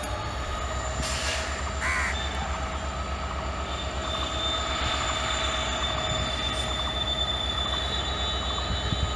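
EMD WDP4D diesel-electric locomotive pulling a passenger train away from a station. Its turbocharged two-stroke diesel engine runs under load with a low rhythmic throb and a steady high whine.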